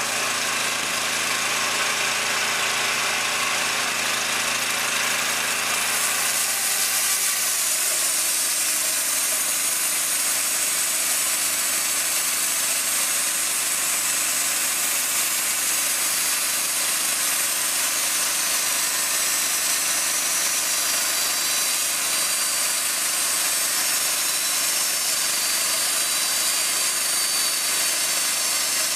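C.H. Wood resaw bandsaw, driven by an 11 horsepower motor, running steadily; about six seconds in the sound turns to a brighter, hissing cut as the blade works through a thick heart pine board.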